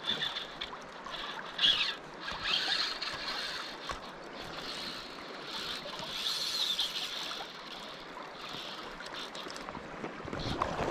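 Steady rush of river water, with several short high-pitched whirring runs from a fly reel as a hooked rainbow trout is played and line goes on and off the spool. One run, about six seconds in, rises and falls in pitch.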